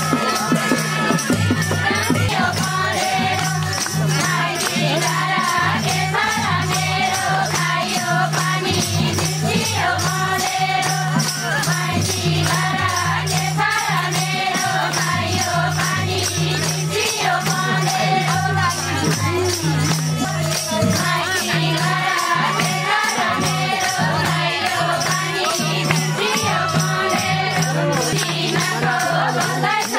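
Nepali ratauli folk song: voices singing over a steady, repeating low beat with shaken, jingling percussion.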